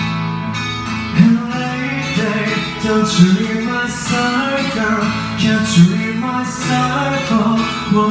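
Karaoke backing track playing, with a man singing along into the karaoke microphone. His voice comes in about a second in.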